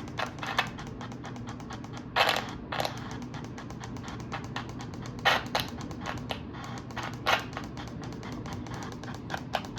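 Rapid, irregular clicking and tapping, like keys being typed, with a few louder clacks about two, five and seven seconds in, over a faint steady hum.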